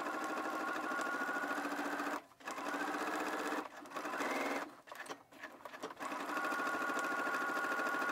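Electric sewing machine stitching a seam, running with a fast, even whir. It stops and restarts several times between about two and six seconds in, then runs steadily again.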